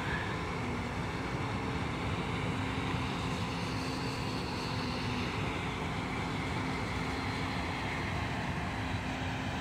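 Dredge discharge pipe gushing a slurry of sand and seawater onto the beach, a steady rushing, under the steady engine hum of crawler bulldozers working the sand.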